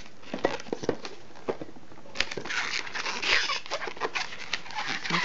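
Air let out of an inflated 160 latex twisting balloon through its pinched neck: a hissing squeal lasting about a second and a half, starting about two seconds in. Small squeaks and clicks come from fingers handling the latex.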